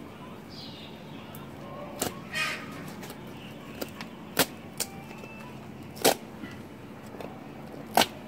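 Meat cleaver chopping through the bones of a slaughtered animal's carcass: about five sharp blows, spaced irregularly one to two seconds apart, with a short scrape just after the first.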